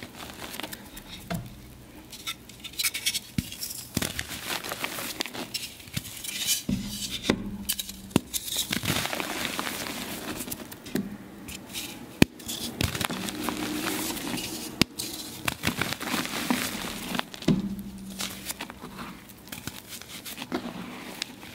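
Reformed gym chalk being crushed and crumbled: a run of crisp crunches and crackles broken by sharp clicks and clinks against a hard dish.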